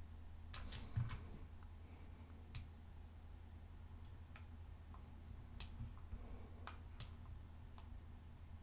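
Faint, scattered computer mouse clicks, about ten at irregular intervals, as short brush strokes are clicked and dragged, over a steady low electrical hum.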